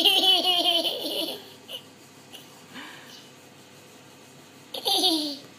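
A small child laughing in a quick run of repeated giggles for about a second and a half, then one more short burst of laughter near the end.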